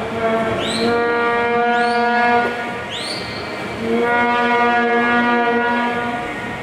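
Spectators' horns blown in long single-pitch blasts at a swimming race: one runs to about two and a half seconds in, and another starts about a second later and lasts two seconds. Crowd noise runs underneath, with short rising whistles about once a second in the first half.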